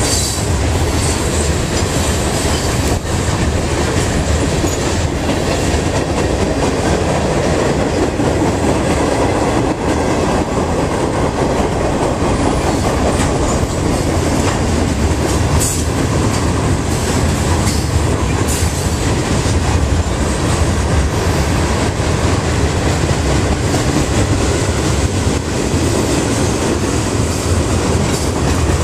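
Freight train cars, covered hoppers and boxcars, rolling steadily past close by: a loud, continuous rumble and clatter of steel wheels on the rails.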